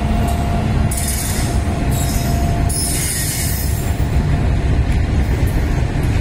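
A WAG9 electric locomotive and a rake of new BOXNHL open wagons rolling past on the track: a steady, heavy low rumble of wheels on rail. Patches of high hiss come about a second, two seconds and three seconds in, and a faint steady whine fades out in the first couple of seconds.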